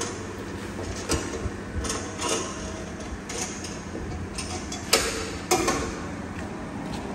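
Irregular metallic clicks and knocks from the steel parts of a homemade lathe being handled, about half a dozen, the loudest about five seconds in, over a low steady hum.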